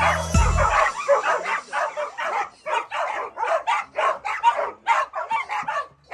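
Excited Vizslas whining and yipping in a rapid run of short, high cries, several a second, as they jump up to greet a person.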